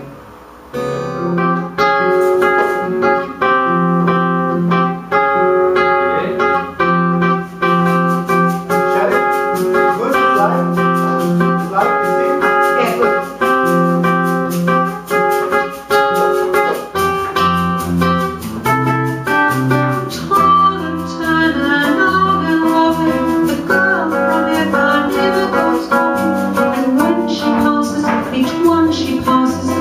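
Acoustic guitar playing a song, starting about a second in, with a woman's singing voice over it in the later part.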